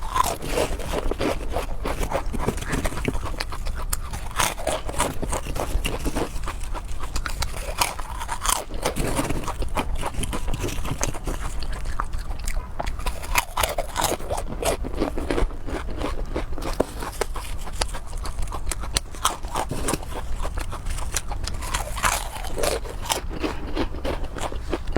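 A person chewing and biting food close to the microphone, with a dense run of small crunches and clicks.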